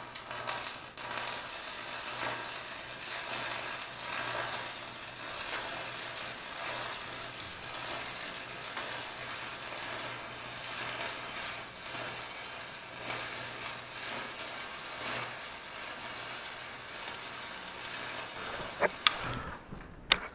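Stick (arc) welding on steel pipe: the electrode arc crackles and sizzles steadily over a constant low hum. It stops about a second before the end, followed by a couple of sharp clicks.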